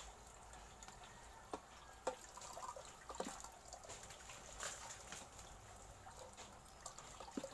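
Faint trickle of water from a garden hose running into a partly filled glass aquarium, with a few short splashes and knocks as more water is poured in by hand from a plastic bag and bowl.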